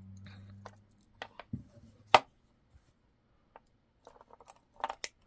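Scattered light clicks and taps of beads and bead strands being set out on a work table, the sharpest about two seconds in, with a quick run of small clicks near the end.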